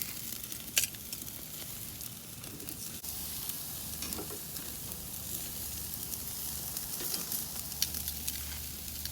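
Steaks sizzling on a hot grill, a steady hiss with scattered crackles and pops from the fat, one sharp pop about a second in.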